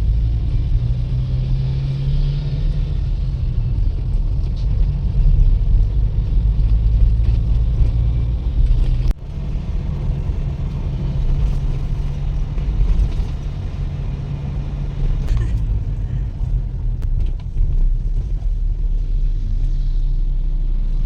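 Road vehicle travelling, a steady low rumble from engine and road, with a sharp momentary break about nine seconds in.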